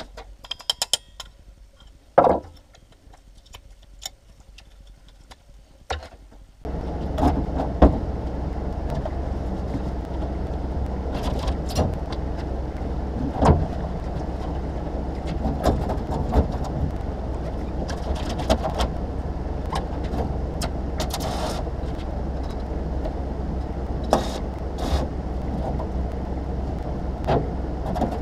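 Metal hand tools handled with scattered clicks and a knock, then about six and a half seconds in an electric welding machine is switched on and runs with a steady low hum, tool clinks continuing over it.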